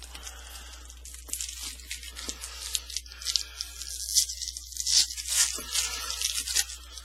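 A foil trading-card pack wrapper being torn open and crinkled. It makes a run of sharp, crisp crackles that starts about a second in and stops shortly before the end.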